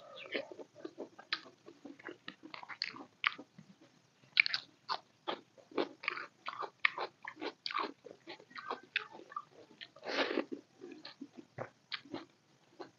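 Close-miked eating sounds of chicken biryani being eaten by hand: dense, irregular wet chewing clicks and lip smacks. About ten seconds in there is a longer, louder noisy sound.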